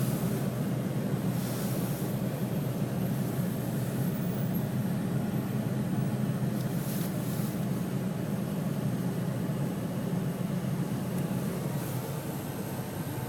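Steady low rumble of a vehicle running, with a few brief hissy swells over it.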